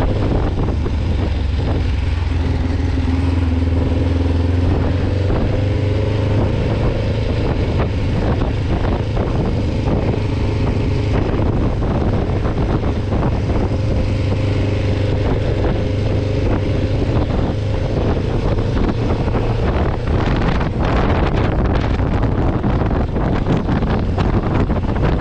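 Kawasaki Ninja 500R's parallel-twin engine running while riding, holding fairly steady revs. In the last few seconds the engine note drops back and wind rushes over the microphone.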